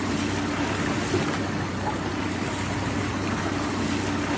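Small boat's outboard motor running steadily, a low even hum under a constant rushing hiss.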